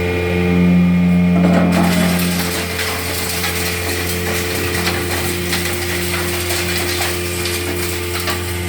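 Stone pulverizing machine (hammer mill) running with a steady motor hum. About a second and a half in, a dense rattling crackle sets in and keeps going as zeolite stone is fed in and ground to powder.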